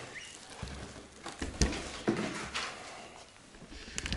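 Packaging being handled: a plastic-wrapped box and cardboard rustling and scraping, with a few sharp knocks, the loudest about a second and a half in.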